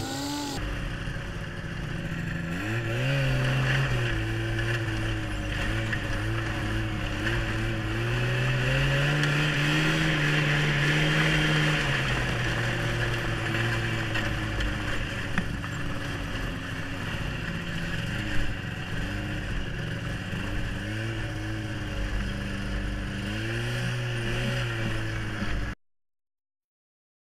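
1996 Yamaha Phazer snowmobile's two-stroke twin engine running under way, its pitch rising and falling with the throttle. The sound cuts off suddenly to silence near the end.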